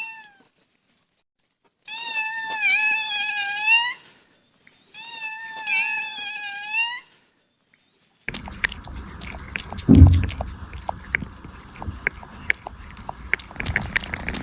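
A kitten meowing: two long, high, wavering meows, each about two seconds long. Then, after an abrupt cut, a steady hiss with scattered clicks and a few low thumps.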